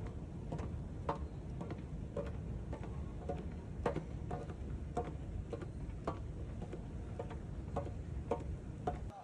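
Escalator running: a steady low rumble with an even mechanical ticking, about two ticks a second.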